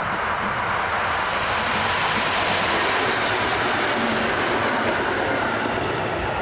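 Electric multiple unit passenger train passing close by: a steady rush of wheels on rail, loudest in the middle as the units go past.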